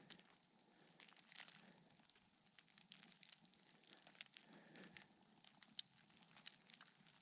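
Near silence, broken by faint scattered crinkling and crackling clicks.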